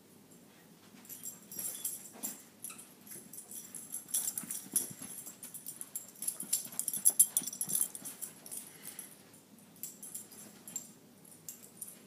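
A dog playing roughly with a plush fuzzy fish toy: an irregular run of scuffles and rustles, loudest around the middle, dying down near the end.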